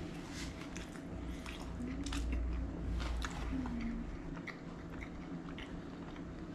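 A person chewing and biting mouthfuls of food close to the microphone, with irregular wet clicks and smacks.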